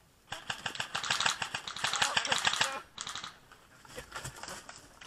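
Automatic airsoft gun firing: a fast mechanical rattle lasting about two and a half seconds, a short burst at about three seconds, scattered ticks after that, then another short burst at the end.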